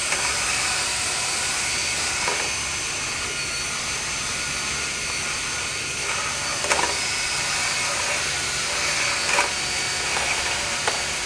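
Dryer vent cleaning equipment running with a steady rushing hiss of air, broken by a few brief knocks.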